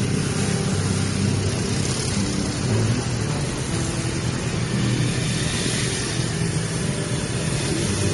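Motorcycle engines running as a group of motorcycles rides along a road, with a steady rush of wind noise over the microphone.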